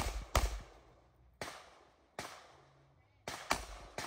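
Pistol shots in a practical shooting stage: about six shots, irregularly spaced. A quick pair comes first, then two single shots about a second apart, then another quick pair. Each shot rings out briefly.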